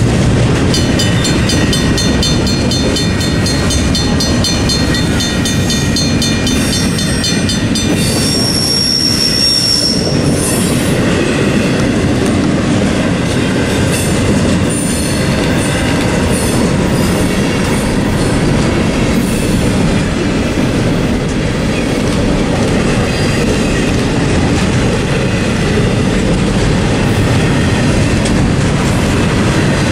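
Double-stack intermodal freight cars rolling past with a steady heavy rumble of wheels on rail. A rapid high metallic ringing rattle runs for about the first eight seconds, then a brief steady high wheel squeal; after that come scattered clanks.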